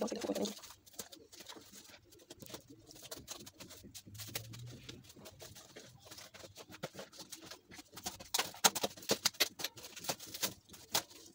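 Wet squelching and smacking of hands rubbing marinade into raw chicken pieces: irregular short clicks and slaps that come thicker and louder near the end.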